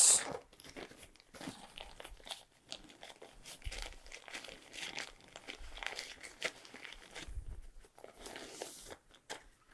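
Packaging being unwrapped by hand from a Zoom H5 recorder: soft, irregular crinkling and rustling with short pauses.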